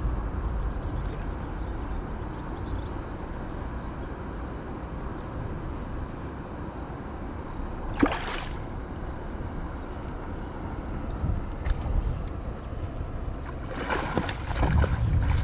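Water sloshing and trickling around a kayak while a hooked snook is played on rod and reel, with a sharp splash about eight seconds in and more splashing near the end.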